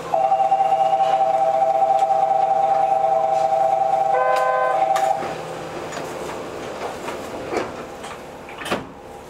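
Subway platform departure signal: a steady two-note electronic tone lasting about five seconds, with a short chime over it near the end. After it cuts off, a quieter background with a couple of short thuds.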